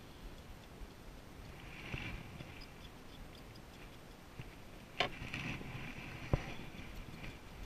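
Handling sounds in a plastic sit-on-top kayak as a fishing rod and reel are moved: faint clicks and rattles over a low steady rush, with two sharp knocks about five and six and a half seconds in.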